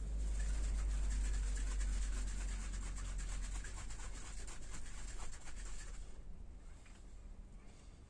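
Scratchy rubbing and handling of a polyurethane spray-foam can as it is readied for use: a dense run of fast scraping ticks that dies away about six seconds in, over a steady low rumble.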